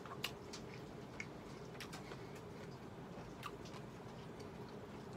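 A person eating quietly: about eight faint, sharp clicks and light taps, spaced irregularly.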